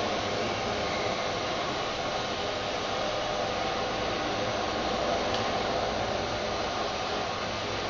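Steady machinery noise: an even, fan-like hiss with a faint low hum, holding the same level throughout.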